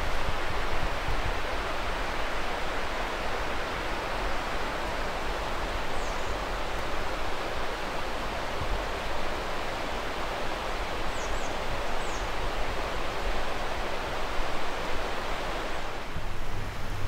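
Steady rushing outdoor ambient noise, with a few faint short high chirps around the middle; it thins slightly near the end.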